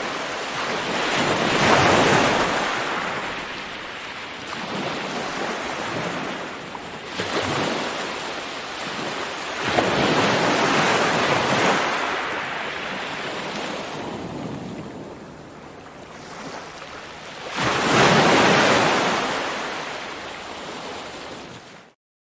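Ocean waves breaking and washing out on a shore, rising and falling in long surges; three big breakers come about eight seconds apart. The sound cuts off abruptly near the end.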